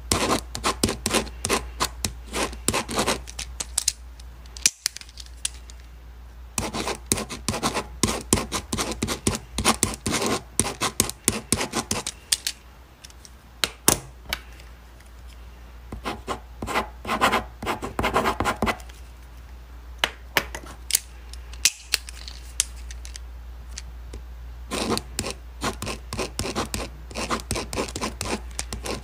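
Pen writing on paper: quick scratching strokes in bursts of a few seconds, with short pauses between.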